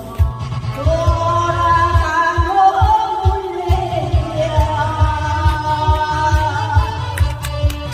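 A singer holding long sung notes over a backing track with a steady drum and bass beat.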